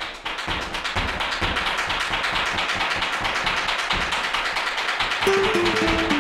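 Fast, dense tapping or crackling that grows steadily louder, then a melody starts about five seconds in.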